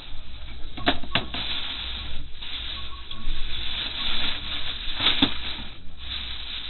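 Plastic bag rustling and crinkling as things are handled and shifted about, with a few sharp knocks about a second in and again about five seconds in.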